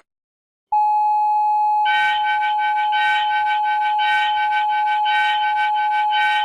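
Emergency alert alarm: after a moment of silence a loud steady electronic alert tone starts, and about two seconds in a second, pulsing electronic beeping layers on top of it.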